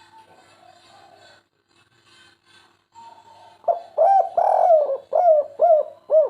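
Spotted dove (derkuku) cooing. After about three and a half seconds of faint sound, it gives a quick run of short coos that rise and fall in pitch, with a longer, rougher note in the middle.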